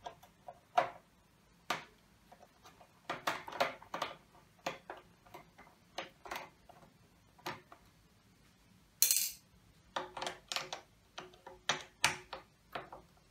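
Screwdriver turning out the small screws that hold the front panel of a 1970s Pioneer TX-8500 II tuner: a string of irregular light clicks and taps, with a short scraping hiss about nine seconds in.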